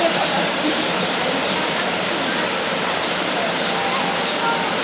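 Steady rush of flowing water, with short high chirps and whistles from several small birds scattered over it.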